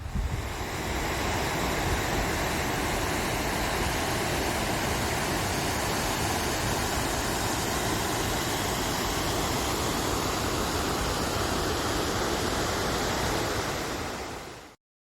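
Steady, loud rushing of falling water, fading out near the end.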